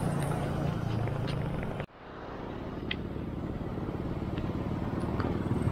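Street traffic heard from a moving bicycle: a passing motorcycle's engine hum over road and wind noise. The sound drops out briefly about two seconds in, then steady traffic and riding noise resumes, with a few faint ticks.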